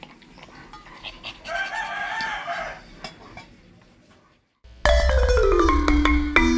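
Faint lapping clicks from an Asian palm civet drinking water from a steel bowl, with a drawn-out wavering call behind it about two seconds in. After a brief silence, bright mallet-percussion music starts abruptly and carries on.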